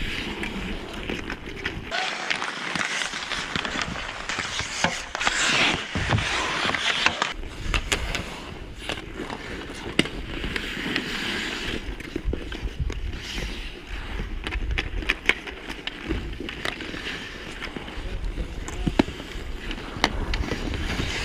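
Ice hockey skates scraping and carving on the ice, with scattered sharp clacks of sticks and puck. The scraping is loudest from about two seconds in for roughly five seconds.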